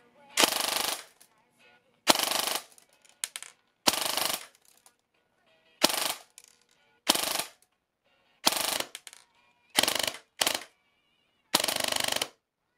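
Airsoft M249 electric gun, fitted with a 3D-printed air nozzle, firing about nine short full-auto bursts into a chronograph, each about half a second long with brief pauses between them. The gun is being chronographed to check the new nozzle's FPS.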